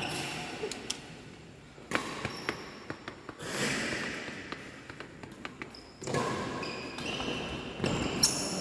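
Badminton play in an echoing sports hall: sharp, scattered racket hits on a shuttlecock, with short high squeaks from court shoes on the floor, most of them in the last two seconds.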